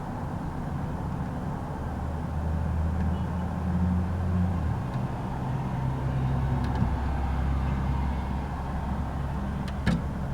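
A steady low mechanical hum, like an engine running, whose pitch shifts a little about halfway through, with a sharp click near the end.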